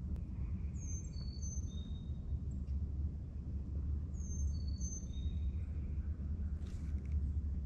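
A songbird sings the same short phrase twice, a few clear whistled notes stepping down in pitch, about three seconds apart. Under it runs a steady low rumble, and there is a brief rustle near the end.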